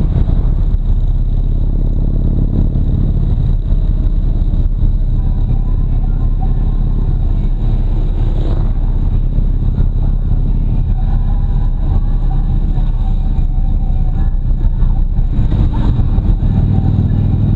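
Harley-Davidson Road Glide Ultra's V-twin engine running steadily under way, heard from a camera mounted on the bike, with a rumble of wind and road noise. The engine note grows louder near the end.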